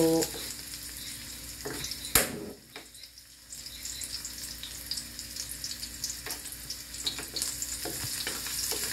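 Garlic and onion sizzling in hot oil in a wok, with a wooden spatula scraping and knocking against the metal pan as they are stirred; one sharp knock about two seconds in is the loudest sound.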